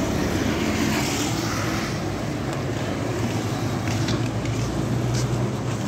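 Steady street traffic noise with a motor engine running nearby, a low steady hum that grows a little stronger in the second half.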